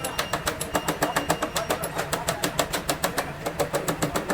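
Rapid, even knocking or clicking, about six to seven strikes a second, keeping up a steady rhythm.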